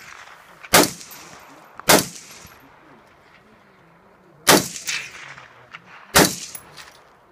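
Four semi-automatic rifle shots fired at uneven intervals during an IPSC Standard-division stage. Each shot trails off in a short echo.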